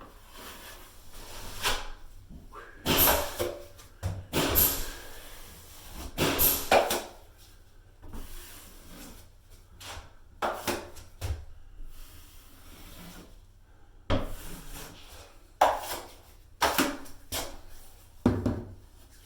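Drywall knife scraping and spreading thick joint compound over drywall in a dozen or so irregular strokes. The compound is unthinned, so the blade drags.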